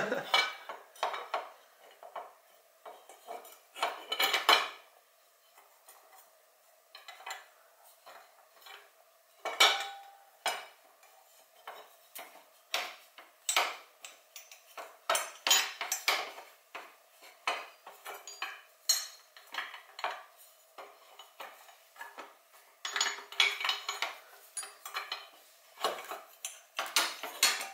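Metal hand tools and parts clinking and knocking in short, irregular taps as bolts on a motorcycle exhaust are worked loose with sockets and wrenches.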